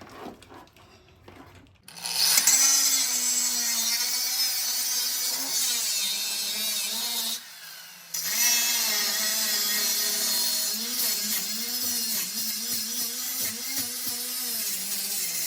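A power tool cutting through the rusted sheet metal of a car's strut tower, its motor pitch wavering as it bites. It starts about two seconds in, stops briefly a little past halfway, then cuts on.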